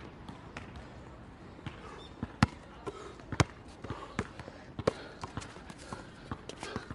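Basketball bouncing on an outdoor court, with sharp, irregularly spaced bounces. The two loudest come about a second apart near the middle, and the bounces come quicker in the second half.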